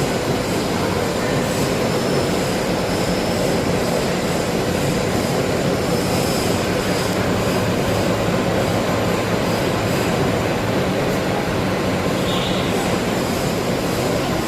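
CNC rack rolling machine running with a steady mechanical whir and hum, even throughout.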